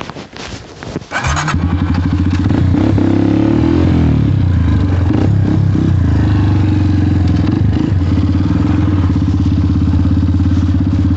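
Motorcycle engine being started: it catches about a second in, is revved once, and settles into a steady idle.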